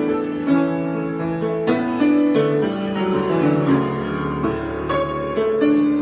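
Grand piano played solo: an improvised passage of chords over a moving bass line, with notes left to ring.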